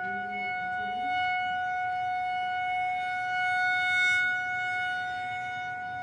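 Outdoor tornado warning siren sounding a single steady tone for its scheduled test. Its loudness swells and eases slightly, peaking about four seconds in.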